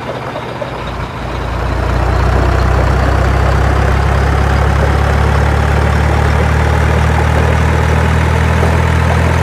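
Truck engine sound running steadily at a constant pitch, swelling up about a second in and then holding at a constant level.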